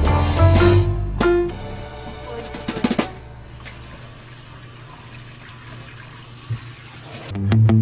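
Background music with a drum beat, which stops after about a second and a half. A few light knocks follow, then tap water runs onto rice cakes in a glass bowl in a stainless steel sink for about four seconds. The music comes back near the end.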